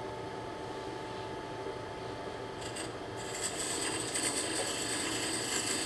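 Wood lathe running with a steady hum while a beading tool cuts beads into the spinning wooden bowl, scraping off shavings. The cutting hiss gets louder about three seconds in.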